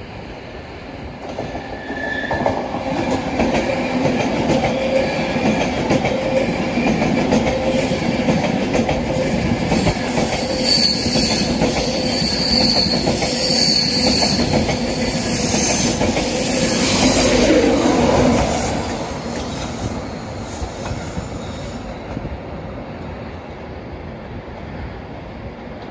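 A train passing along the rails, its noise building about two seconds in and fading after about eighteen seconds, with clatter of wheels over the track and a few high-pitched wheel squeals about halfway through.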